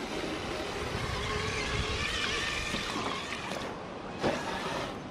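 Water churning and sloshing around a 1/10-scale Axial SCX10 III Base Camp RC crawler as it wades through a river almost up to its roof, with the crawler's electric motor and drivetrain running under the water noise. A brief louder splash about four seconds in.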